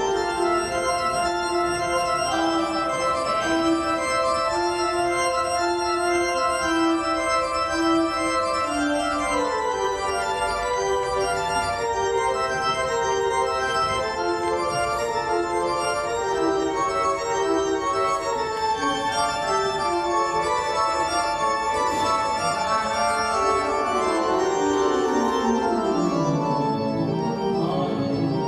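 Organ played solo: sustained chords under a stepwise moving melody, with a quick descending run of notes near the end.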